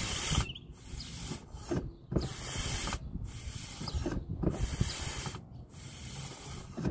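Brake master cylinder being bled: each push of the piston forces brake fluid and air through the bleed line with a hiss that comes and goes about once a second, over mechanical clicks and rubbing from the pumping.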